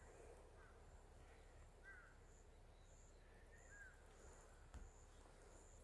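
Faint meadow ambience: an insect chirping at a high pitch in a regular rhythm, about one and a half chirps a second, with three soft, short bird chirps.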